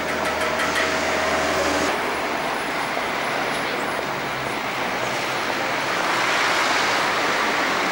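City street traffic noise: a vehicle engine hums for about the first two seconds and stops, then a steady wash of passing traffic that swells near the end.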